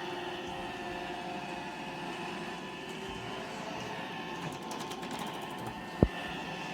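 iRobot Roomba E5 robot vacuum running: a steady motor and brush hum with several held tones, a brief patter of fine ticks a little past the middle, and a single sharp thump about six seconds in.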